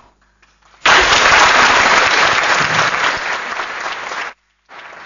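Audience applause breaks out suddenly about a second in, loud and dense. It cuts out briefly near the end, then resumes more quietly.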